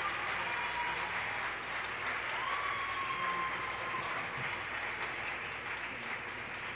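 Small audience applauding at the end of a figure skating program, the clapping slowly dying down.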